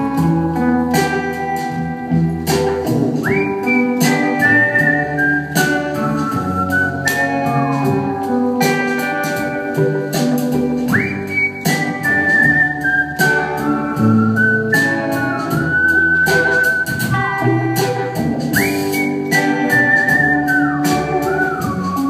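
Live band instrumental break with a man whistling the melody: clear whistled notes with quick upward swoops to a high note about every eight seconds, over guitar chords and a steady beat.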